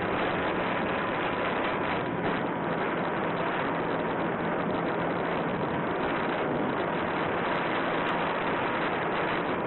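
Onboard audio from a small electric RC plane in flight: steady wind rush on the camera's microphone, with a faint steady tone from the motor and propeller running underneath.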